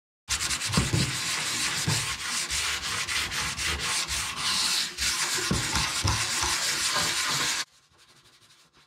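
Sanding on a VW Type 1 sheet-steel engine cooling tin: a loud, rough, continuous scraping with uneven strokes that cuts off abruptly near the end. The sanding scuffs off the old sheen and rust so the high-temperature paint can grip.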